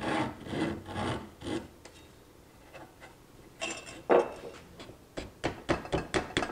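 Flat hand file rasping across the edge of a wooden table rail in about four quick strokes. A sharp knock follows about four seconds in, and a quick run of light clicks near the end.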